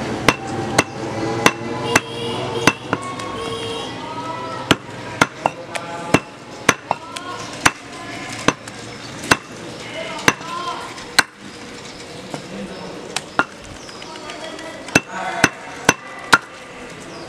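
Butcher's cleaver chopping goat meat on a wooden stump chopping block: sharp, irregular chops, about two a second.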